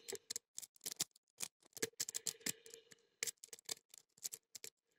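Lock pick and tension wrench working the pins of a small Beorol brass padlock: faint, irregular metallic clicks and ticks, several a second.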